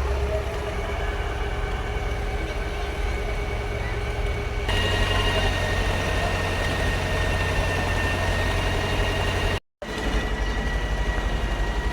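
Excavator's diesel engine running steadily under work. About five seconds in it gets a little louder and a steady high whine joins it. The sound cuts out for a moment near ten seconds in.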